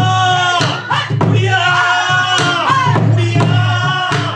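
Pansori singing: long-held, wavering sung notes that bend in pitch, accompanied by a buk barrel drum struck a handful of times at irregular intervals.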